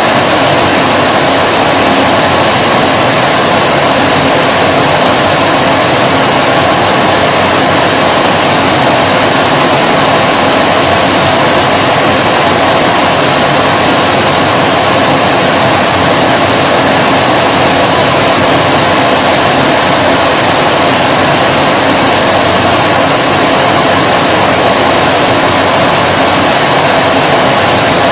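Vacuum cleaner running continuously at a steady pitch: an even, loud whooshing hum with a constant motor whine, unchanging throughout.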